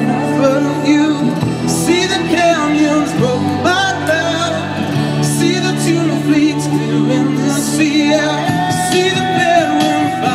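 A man singing karaoke into a microphone over a pop backing track, with held chords that change every couple of seconds.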